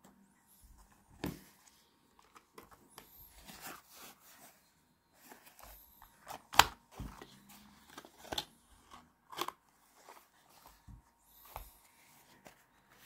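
Close handling noise of .32 S&W Long cartridges and their boxes: brass cases clicking against each other and a cardboard box and plastic cartridge tray tapping and rustling. An irregular run of sharp little clicks, with one louder tap about six and a half seconds in.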